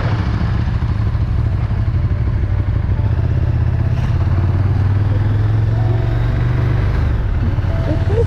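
KTM 1290 Super Duke R's V-twin engine running steadily at low road speed, heard from the rider's seat.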